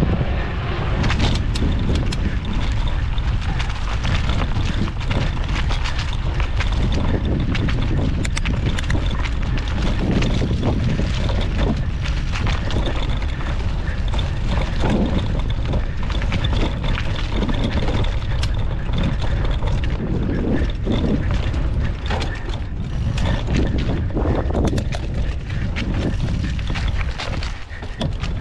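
Mountain bike being ridden over a rough trail, heard through a handlebar-mounted GoPro: a steady low rumble of wind and tyre noise with constant rattles and knocks from the bike over bumps.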